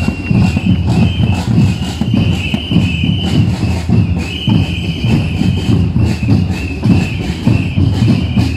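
Marching drums beating a steady, rapid rhythm, with a high tone that comes and goes above the beat.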